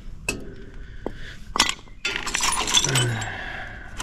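Rusty scrap steel parts clinking and scraping against each other as they are picked up and shifted by hand in a scrap pile. A few separate sharp clinks come first, then a denser clatter of clinks about two seconds in.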